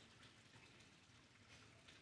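Near silence: faint church room tone with a few soft clicks.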